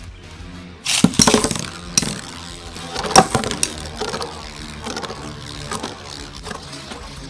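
Beyblade spinning tops with metal wheels whirring on a clear plastic stadium floor. There are sharp clacks of the tops striking: a cluster about a second in, another at two seconds, and the loudest about three seconds in, then smaller clicks and a quieter steady whir.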